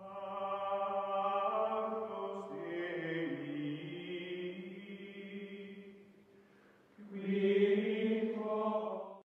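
Outro music: a sustained chant-like choral drone of held notes, fading away about six seconds in, then swelling again for a last phrase before it stops.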